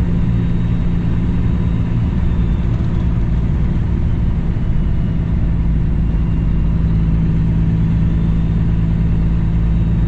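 Cummins ISX diesel engine of a 2008 Kenworth W900L semi truck running steadily while driving, heard from inside the cab as an even low drone with no change in pitch.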